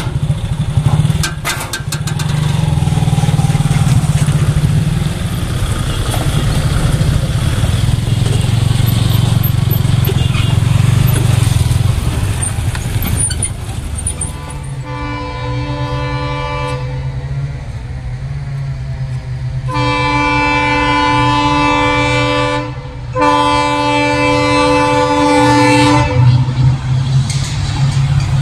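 Road vehicles' engines running at a level crossing, then a locomotive horn sounding in three long blasts of about three seconds each from halfway through, with a fourth starting at the end, over a steady low engine rumble.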